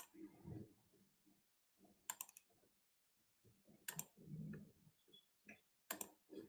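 Faint, broken-up fragments of a woman's voice coming through a failing video-call connection, with several sharp digital clicks about two seconds apart. The sound is the call dropping out.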